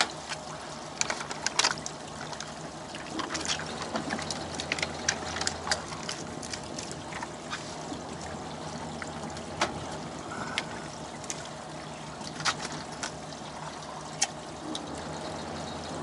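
Water trickling and pouring, with scattered sharp clicks and taps throughout and a steady low hum underneath.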